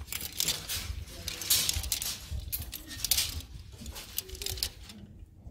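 Plastic clothes hangers with metal clips being pushed along a metal clothing rack: a quick, irregular run of clicks, clacks and scrapes that thins out near the end.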